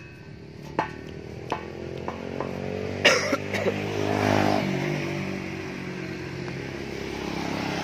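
An engine running at a steady speed, getting a little louder toward the end, with a few sharp clicks in the first half and a loud, short sound about three seconds in.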